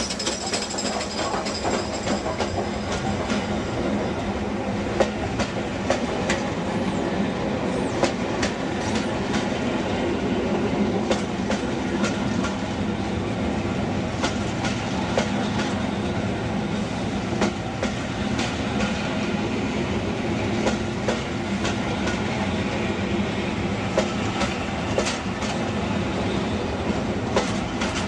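A train of railway passenger carriages rolling past close by, with a steady rumble of wheels on rail. Irregular metallic clacks come as the wheels cross rail joints and pointwork.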